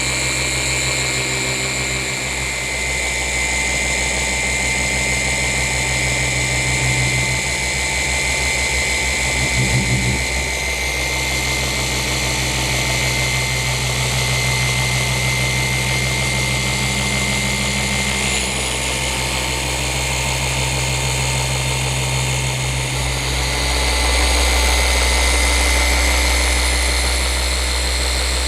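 Flex forced-rotation polisher running steadily on car paint, a motor whine at an even pitch. Its sound shifts briefly about ten seconds in and grows louder and deeper for a few seconds near the end.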